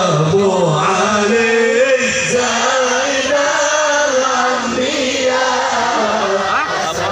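Sholawat chanted by a man over a PA system: one long, drawn-out melismatic line that rises and falls slowly in pitch, with music behind it.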